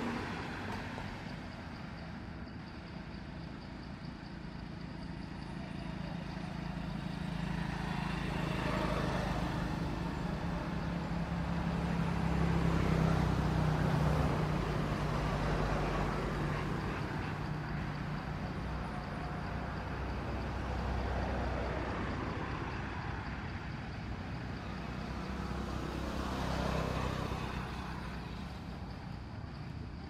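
Motor vehicle engines running in the background: a low, steady rumble that swells and fades several times, like traffic passing.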